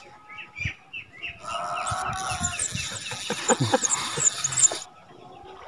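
Chickens clucking and small birds chirping. The calls grow louder and busier after about a second and a half, then stop abruptly near the end.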